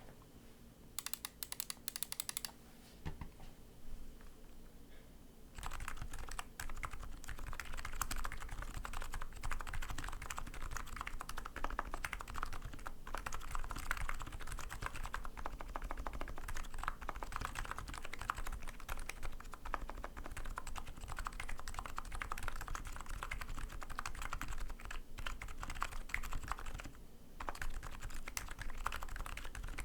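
Fast typing on a custom 60% keyboard with lubed electro-capacitive (Topre-style EC kit) switches and PBT keycaps. A short burst of keystrokes comes about a second in, then steady rapid typing runs from about five seconds in, with a brief pause near the end.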